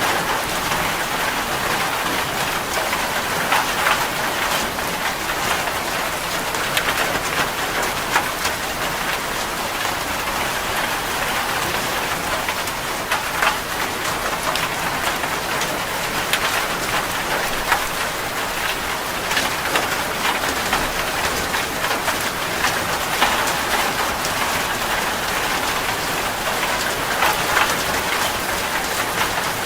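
Heavy rain falling steadily on a metal roof, with many individual drops striking sharply through the steady hiss.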